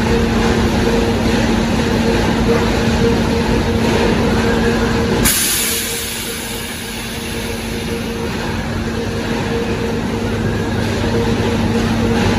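Automated conveyor machinery of a corrugated cardboard production line running, a steady mechanical rumble with a constant hum. About five seconds in a sudden hiss cuts in and the low rumble drops away, then gradually builds back.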